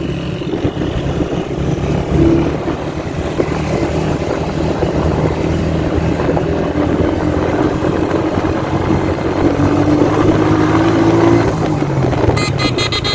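Motorcycle engine running steadily at cruising speed, with wind and road noise on the microphone. Near the end comes a rapid train of sharp clicks.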